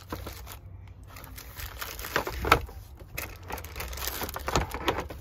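Plastic packaging bags crinkling and rustling as small radio accessories are handled, with irregular clicks and crackles, the sharpest about halfway through, over a low rumble.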